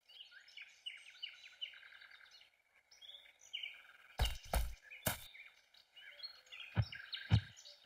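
Forest ambience: many birds chirping and twittering over a faint steady hiss. A handful of short knocks, louder than the birdsong, come in the second half.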